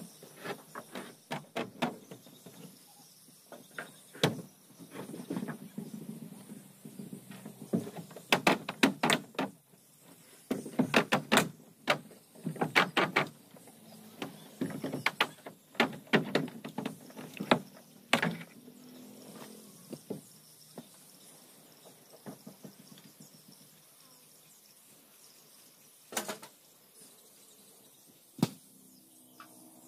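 Hand tool, most likely a hammer, striking the wooden planking of a boat hull: quick runs of sharp knocks through the first half, then two lone knocks near the end.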